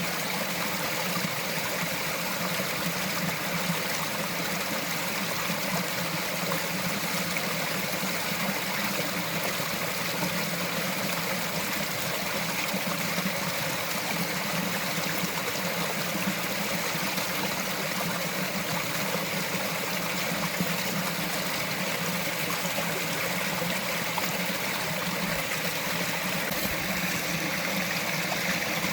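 Small mountain forest stream flowing and trickling steadily over rocks.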